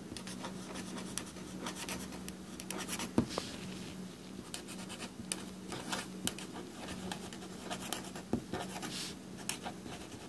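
Sharpie permanent marker scratching across paper while a line of small cursive lettering is written, a quick run of short strokes. A low steady hum runs underneath.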